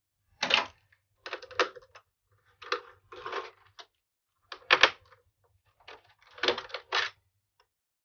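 A small metal screwdriver clicking and scraping against the PlayStation 5's screws and plastic fan housing as screws are worked loose, in several short bursts of taps.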